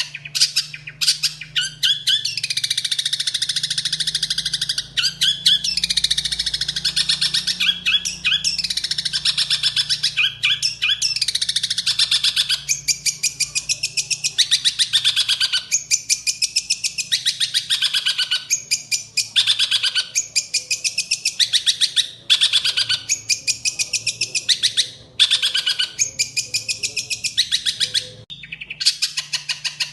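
A songbird singing long runs of rapid, chattering trills and warbles, nearly unbroken at first, then in phrases of one to two seconds with short pauses between them. A low steady hum runs underneath.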